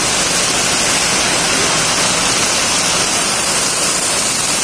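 Torrential rain falling on paved ground: a loud, steady, dense hiss.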